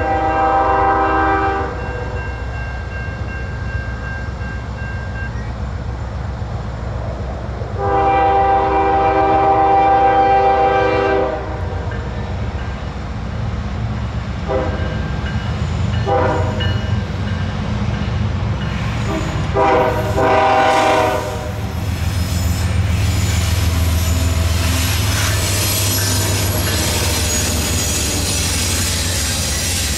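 Norfolk Southern diesel locomotives running light sound their air horn in a series of long and short blasts as they approach. Then the engines pass close by, their low diesel rumble and wheel clatter growing louder.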